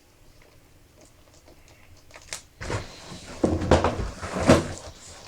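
Handling noise as the laptop and its packaging are moved about: a couple of seconds of scraping, rustling and knocks starting about halfway in.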